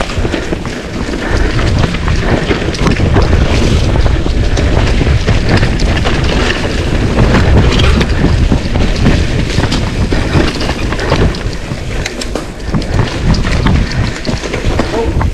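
Heavy wind buffeting on the microphone of a mountain bike ridden at speed, with a constant clatter of rattles and knocks from the bike over rough trail.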